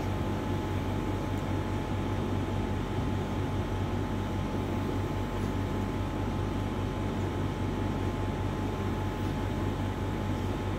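Steady machine hum: a constant low drone under an even hiss, with a faint steady whine, unchanging throughout.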